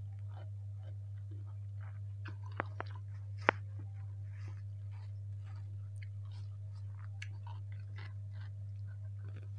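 Close-miked chewing and mouth sounds of a woman eating nasi goreng kencur (fried rice) by hand. A few sharp, crisp clicks stand out, the loudest about three and a half seconds in. A steady low hum runs underneath.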